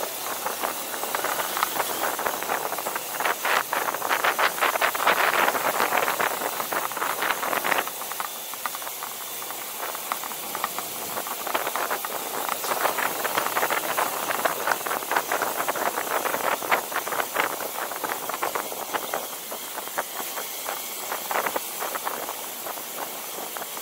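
Riding noise from a small hired motorbike: a steady hiss with dense rattling, loudest in the first third, and no clear engine note.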